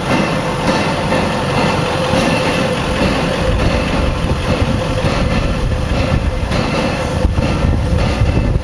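Nickel Plate 765, a Berkshire-type steam locomotive, standing with steam up: a steady hiss with an even hum from its running machinery, heard right beside the driving wheels. A low rumble grows about three and a half seconds in.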